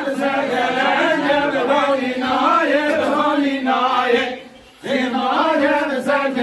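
A group of men singing a halay folk song together, with a short break about four and a half seconds in before the singing picks up again.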